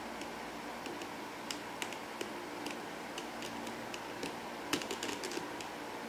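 Small plastic clicks and taps from a LEGO puzzle box being handled, its bricks knocking and sliding under the fingers. About a dozen scattered clicks, with a cluster of louder ones about three-quarters of the way through.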